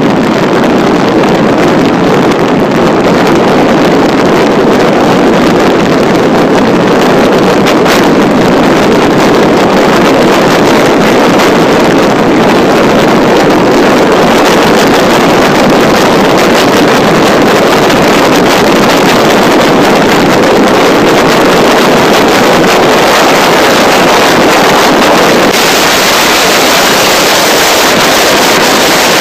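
Steady, loud wind noise blasting the microphone of a camera mounted on a road bike descending at speed. The hiss turns brighter about 25 seconds in.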